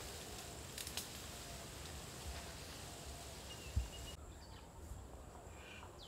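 Outdoor ambience: insects droning steadily at a high pitch over low wind rumble, with a few clicks and a short thump a little before the four-second mark. About four seconds in the sound changes abruptly to quieter open-field ambience with a few faint bird chirps.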